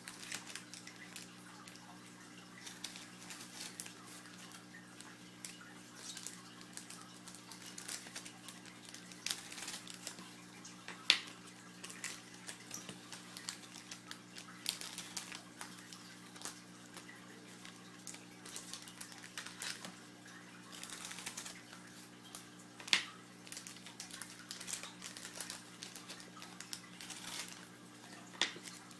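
Football trading cards and their packs being handled: irregular light clicks and crinkles as packs are opened and cards are slid and flicked through, with a few sharper snaps, over a steady low hum.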